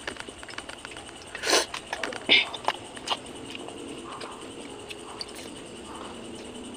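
A person eating grilled fish and rice by hand from a stainless-steel bowl, with chewing and mouth smacks. A few sharp smacks and clicks come in the first half, and softer chewing follows.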